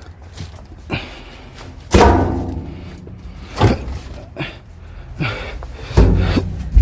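Heavy thuds and knocks of scrap metal parts being handled and set down, several of them, the loudest about two seconds in and another near the end, each ringing on briefly.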